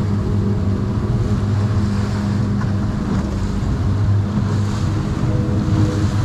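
Small boat's outboard motor running steadily while under way, with the rush of water past the hull and wind on the microphone.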